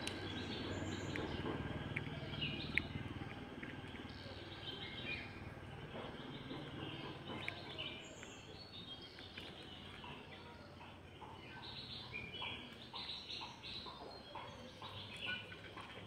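A flock of chickens in a poultry shed calling with many short chirps and clucks, overlapping more thickly in the second half. A low rumble in the first few seconds fades away.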